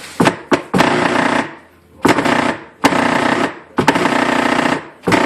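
Sundown SA-8 car subwoofers wired straight to a wall socket, blasting a harsh mains buzz in repeated bursts, each under a second long, with short gaps between them.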